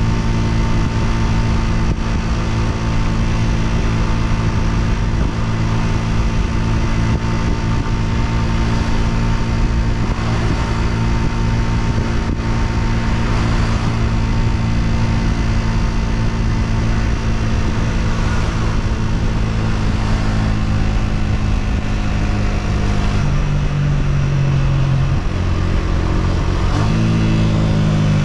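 Honda CG125's single-cylinder four-stroke engine running steadily at cruising speed under the rider, with wind rush on the microphone. The engine note drops about two-thirds of the way through and rises briefly again near the end.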